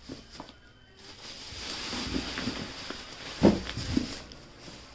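Thin black plastic bags crinkling and rustling as hands handle them inside a cardboard box, starting about a second in, with a couple of soft knocks near the end, the first the loudest.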